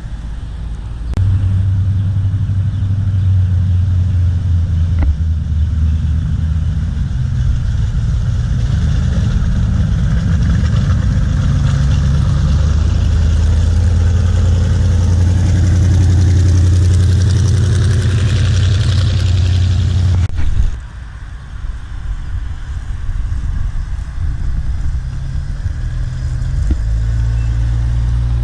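Car engine running with a deep, loud rumble, the pitch rising a little as it pulls along. About 20 seconds in it cuts off abruptly, leaving a quieter engine sound.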